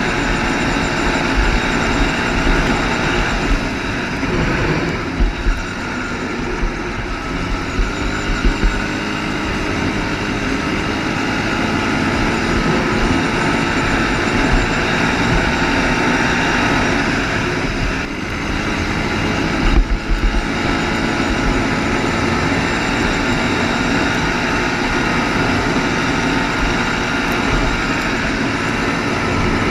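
ATV engine running at a fairly steady pitch while being ridden, with a few brief knocks along the way.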